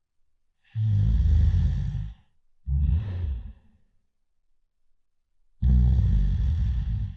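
Loud, rattling snoring: a long snore on the in-breath, a shorter one on the out-breath, then after a pause of about two seconds another long in-breath snore.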